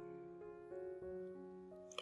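Faint background music: a few soft, sustained keyboard notes changing pitch every fraction of a second, with a brief click near the end.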